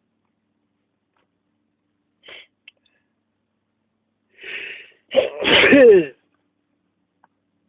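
A person sneezes once after sniffing tobacco snuff: a drawn-in breath, then a loud burst with a voiced cry that falls in pitch.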